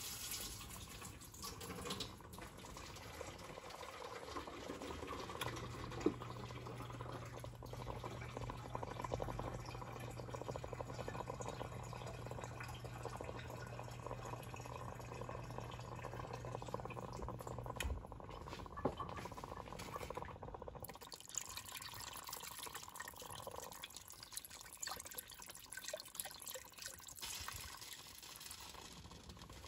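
Water running and pouring into a stock pot of beef broth, a steady splashing stream. A low steady hum sits under it for a stretch in the middle and cuts off suddenly.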